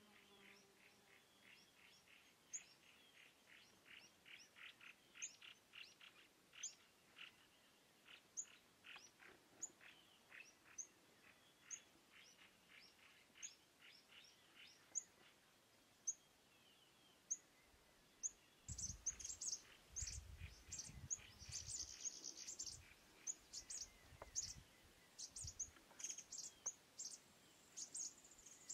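Faint bird chirping: a run of short, high chirps, about one or two a second, growing busier and louder in the last third, with a few low thuds among them.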